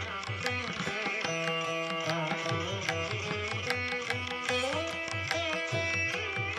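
Instrumental background music: a plucked-string melody over held tones and a steady low drum beat.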